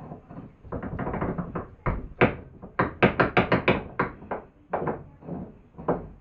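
A rapid series of sharp knocks on a hard object, coming about five a second at their thickest in the middle, with a few scattered knocks before and after.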